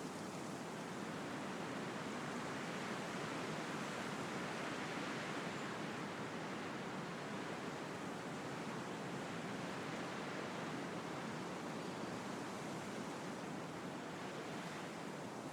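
Wind rushing steadily through the leaves of trees, swelling slightly in the middle and easing again.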